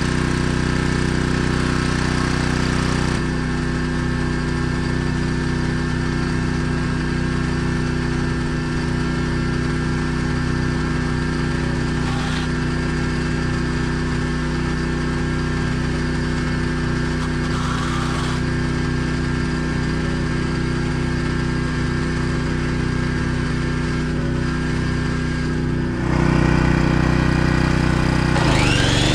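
Small portable gasoline generator running steadily, a constant engine hum that holds its pitch throughout.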